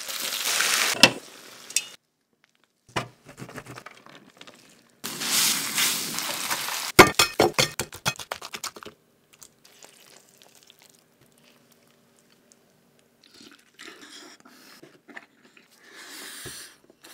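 A string of cooking and eating sounds: meatballs sizzling in oil in a frying pan, with a sharp click about a second in. More sizzling comes around the middle, then a quick run of crackles and clicks, then faint chewing near the end.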